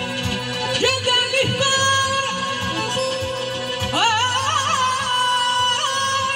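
Live Azerbaijani folk song at a wedding: a male singer amplified through a PA, sliding up into long ornamented notes with a wavering trill, over held accordion notes and a hand drum beat.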